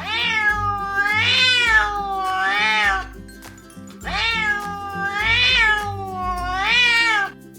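Cat meowing in long, drawn-out calls that rise and fall in pitch, two runs of three calls with a short pause between them, over background music.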